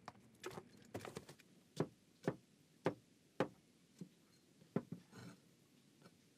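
Kitchen cleaver chopping on a wooden cutting board: about ten separate sharp knocks, roughly two a second with slightly uneven spacing.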